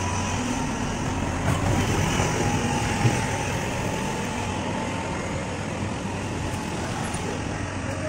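Steady engine hum of heavy rail track-laying machinery, with a faint whine early on and a single sharp knock about three seconds in.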